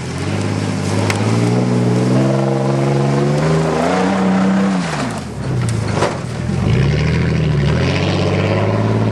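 GMC pickup truck's engine revving hard as it drives through a mud hole. The pitch climbs for about four seconds, drops sharply as it passes, then rises and falls again as the truck pulls away.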